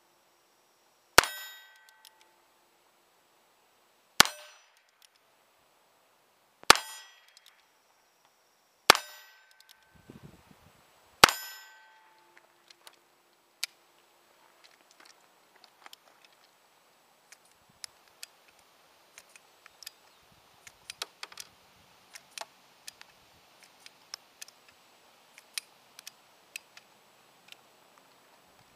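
Heritage Rough Rider single-action .22 revolver fired five times, about two and a half seconds apart, each shot followed by the short ring of a steel target being hit. After the last shot come only faint scattered clicks of the gun being handled.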